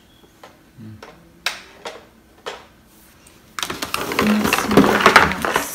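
A few separate plastic clicks as a toy is handled, then, about three and a half seconds in, a couple of seconds of loud, dense, rapid clattering.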